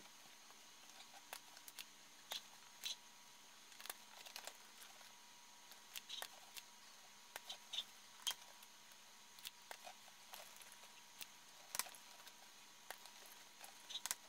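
Soldering iron tip being jabbed and wiped in a brass-wool tip cleaner: faint, irregular crunchy clicks and scratches.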